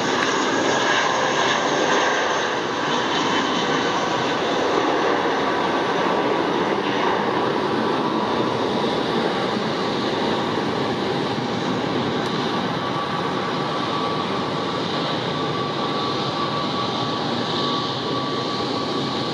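Airbus A320-232 with twin IAE V2500 turbofans at takeoff thrust: steady, loud jet engine noise with a faint whine as the airliner lifts off and climbs away, easing slightly in level toward the end.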